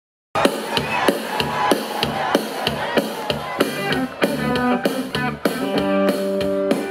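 A rock band playing live: a steady drum-kit beat with guitar, starting abruptly about a third of a second in, with held chords entering about four seconds in.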